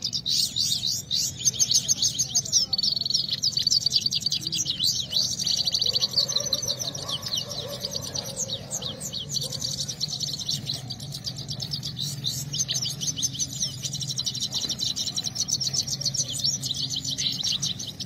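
Caged Himalayan goldfinch (saira) singing without pause: a fast, high twittering of chirps and trills, its competition song in a singing contest.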